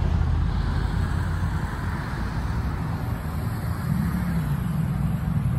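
Road traffic close by: motor vehicles running and passing, a steady low rumble with tyre noise.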